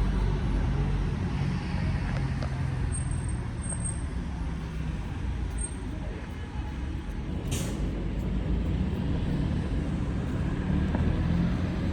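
Street traffic: a steady low engine rumble from vehicles, with a short hiss about seven and a half seconds in.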